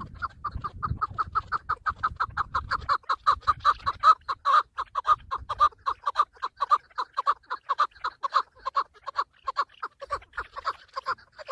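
Chukar partridge calling: a fast, unbroken run of clucking chuck notes, about five a second. A low rumble sits under the first few seconds.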